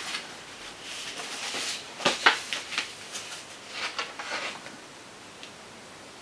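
A card folder and paper sheets being handled and opened: rustling, with a few sharp taps and clicks about two seconds in and again around four seconds.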